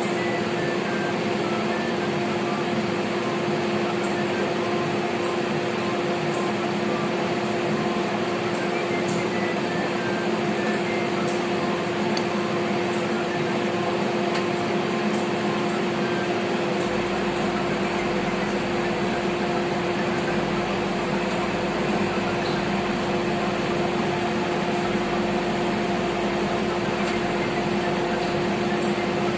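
Microwave oven running with a steady, even hum.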